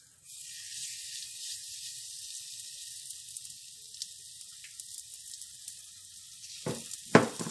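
Batter sizzling in a thin layer of hot cooking oil in a nonstick frying pan as it is spooned in and spread with a spatula, a steady hiss. Near the end come two short knocks, the second the loudest.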